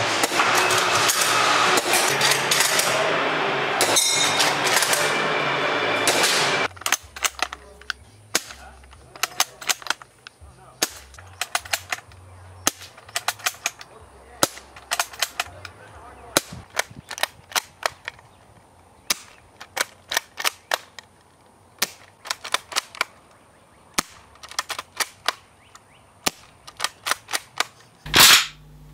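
Airsoft replica rifles fired one after another: a long run of sharp single shots and clicks, irregularly spaced and sometimes in quick clusters of two or three. Louder, heavier shots come near the end. A dense, loud rushing noise fills the first six seconds or so and cuts off suddenly.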